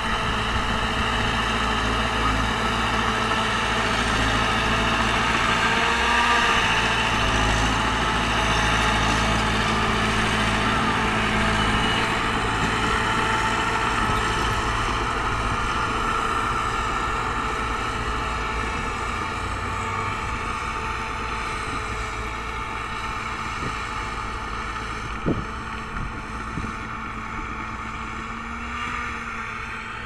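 Small Shantui crawler bulldozer's diesel engine running steadily under load as it pushes soil, with low rumble from its tracks. The sound grows fainter over the second half, and there is one sharp knock near the end.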